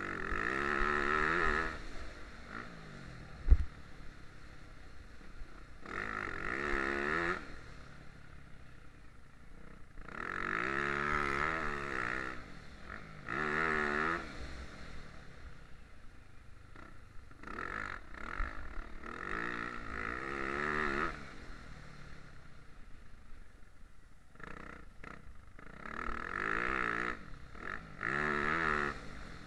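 Motocross bike engine revving hard in repeated bursts, the pitch climbing with each burst and falling away off the throttle between them. A single sharp knock about three and a half seconds in.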